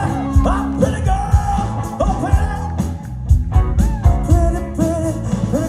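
Rock band playing live, with sung vocals over drums and a steady low bass line.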